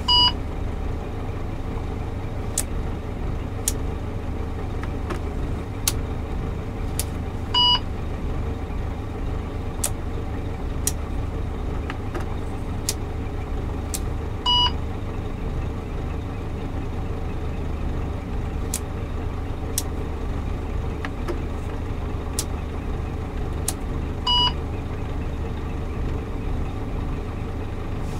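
Scania truck's diesel engine idling steadily, heard from inside the cab, with a short electronic beep from the dashboard four times as the Opticruise gear selector is moved, and sharp clicks now and then.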